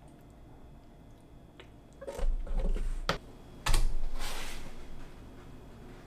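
Kitchenware being handled on a counter. A cluster of soft knocks and clicks comes about two seconds in, then a sharp click, then a louder knock followed by a short rustling noise that fades away.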